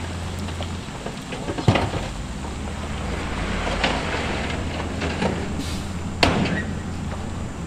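Heavy diesel machinery running with a steady low hum, with several sharp knocks and clatters, the loudest about two seconds in and again near six seconds.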